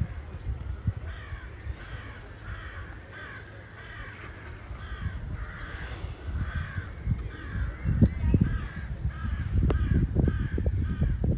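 A steady series of short, harsh, downward-falling animal calls, about two a second. From about eight seconds in, irregular low rumbling and thumps grow and become the loudest sound.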